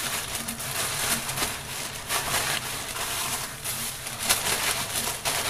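Plastic freezer bags rustling and crinkling irregularly as small bagged portions of grape leaves are handled and packed into a larger freezer bag.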